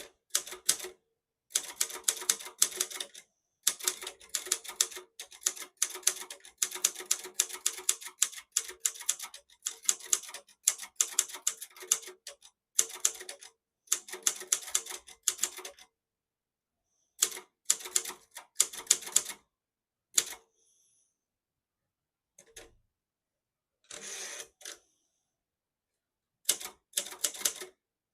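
Silver-Reed Silverette manual portable typewriter being typed on: rapid runs of key strikes with short pauses between words and lines, and a longer break before the typing resumes near the end.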